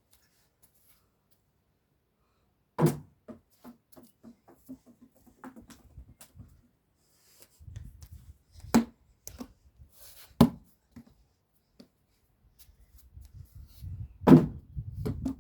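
Near silence for a few seconds, then a series of knocks and thuds: four loud ones, with smaller clicks and low rumbling handling noise between them.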